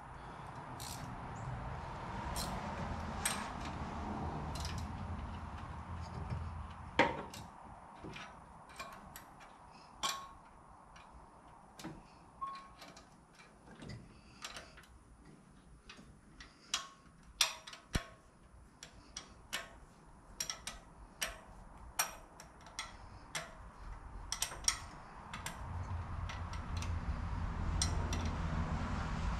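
Hand tools and metal engine parts clinking and clicking irregularly during work on a car's front end. A low hum is also present at the start and again near the end.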